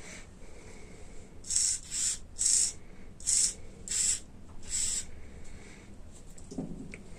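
Small radio-control hobby servos whirring through their gears in six short bursts, each under half a second, as they are driven back and forth. A soft low thud near the end.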